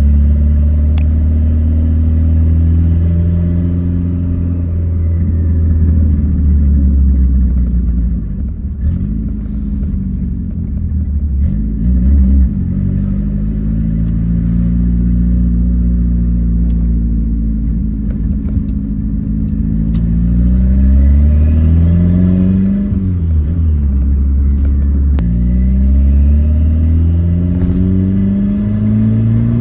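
Volkswagen Gol's turbocharged, carbureted AP four-cylinder engine under way, its revs climbing and falling several times, with sudden drops in pitch like gear changes and a steady climb near the end.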